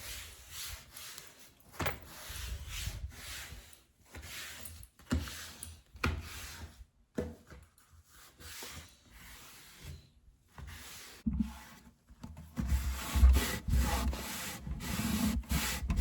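A cloth wiping down wooden dorm furniture, a desk or cabinet: repeated, irregular rubbing strokes with small knocks and bumps. It gets louder and closer over the last few seconds.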